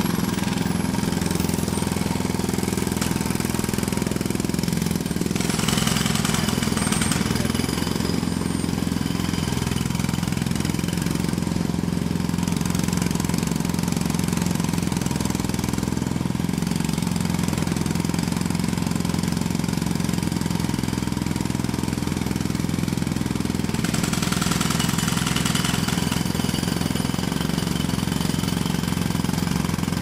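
Jackhammer running continuously, heard close up: a rapid, steady hammering with a strong low hum. Twice the high hiss grows stronger for a couple of seconds.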